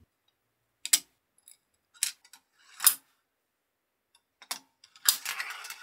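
A few sharp, separate clicks about a second apart from steel marbles and 3D-printed plastic parts being handled. From about five seconds in, a steel marble rolls and rattles along the Gravitrax marble-track rails toward the magnetic Gauss-cannon starter.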